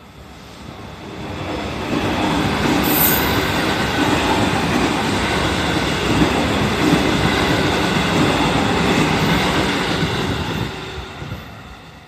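JR Central 313 series electric train passing close by. It swells up over the first two seconds, runs loud and steady with wheels clattering over the rail joints, gives a brief high squeal about three seconds in, and fades away over the last second or two.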